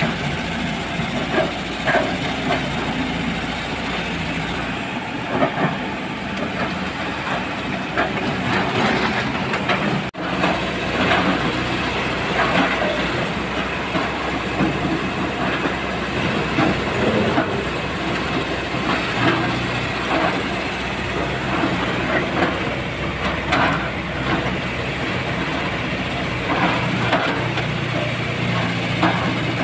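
Hydraulic excavator's diesel engine running steadily, with frequent irregular metallic clanks and knocks over it and a brief dropout about a third of the way through.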